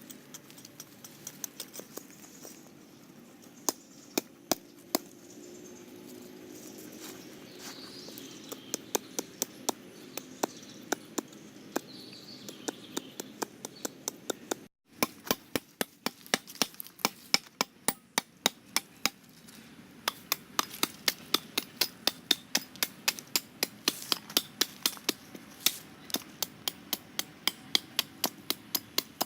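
A long run of sharp chopping or hammering knocks, a few scattered at first, then coming steadily at about two to three a second, with a brief break about halfway through.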